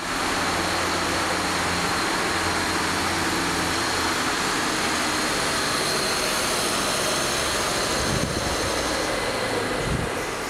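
Vehicle engine running steadily: a constant low hum under an even hiss. A couple of low thuds come near the end.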